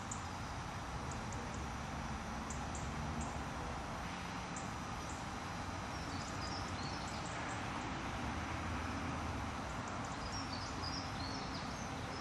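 Mini excavator's engine running steadily in the distance under a haze of outdoor noise, with short bird chirps about six seconds in and again near the end.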